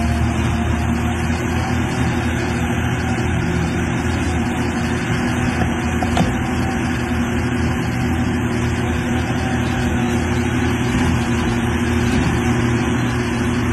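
Caterpillar excavator's diesel engine running steadily at close range, with one short click about six seconds in.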